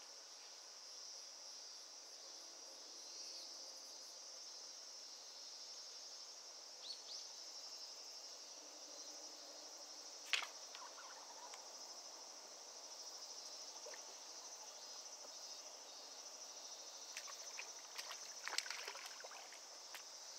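Insects calling in a steady, high-pitched drone, with a sharp click about halfway through and a few softer clicks near the end.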